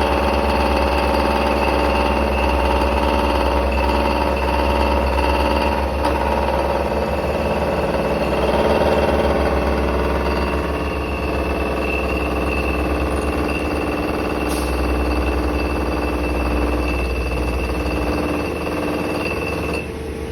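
CNC milling machine cutting a plastic-injection mould core: steady machine whine in several tones over a rapid low rattle from the cut. It drops a little in level near the end.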